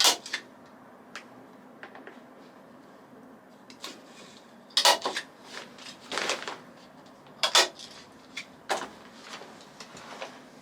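Irregular knocks and clunks of things being handled and set down, several loud ones with quieter clatter between.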